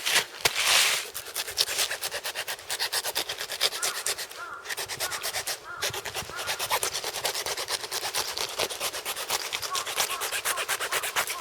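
Hunting knife working at a deer carcass in fast back-and-forth scraping strokes, about seven a second, kept up evenly throughout.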